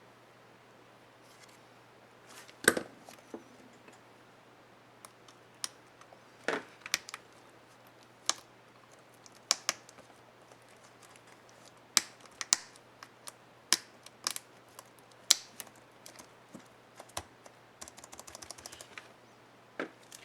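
Sharp plastic clicks and snaps from HP ENVY 15 laptop keyboard keys and keycaps being worked by hand: about fifteen irregular single clicks, then a quick rattle of light clicks near the end.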